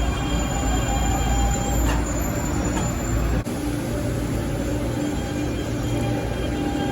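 Electric commuter train moving along a station platform: a steady rumble with steady motor tones and a thin high squeal from the wheels that fades out about three seconds in.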